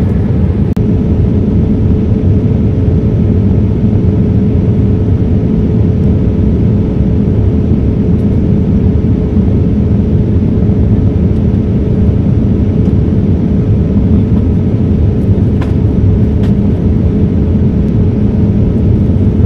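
Steady cabin noise of an airliner in flight: a constant low rumble with a faint steady hum above it, and a few faint clicks.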